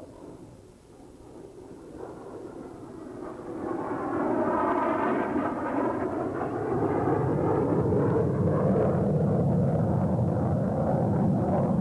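F-16 fighter jet engine noise, swelling over the first few seconds as the jet comes in, then staying loud and steady.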